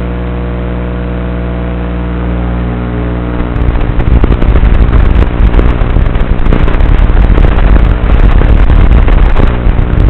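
Tiny whoop micro quadcopter's motors (Micro Motor Warehouse medium-speed motors on an Inductrix) running with a steady buzzing hum. About three and a half seconds in, the throttle comes up for flight and the buzz turns loud and rapidly fluctuating, easing a little near the end.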